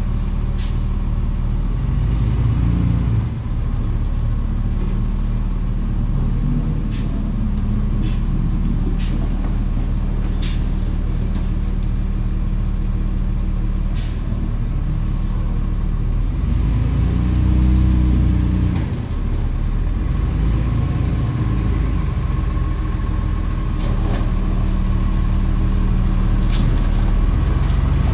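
Rollback tow truck's engine idling steadily, revving up and back down about two-thirds of the way through as the truck begins to move, with a few scattered sharp clicks.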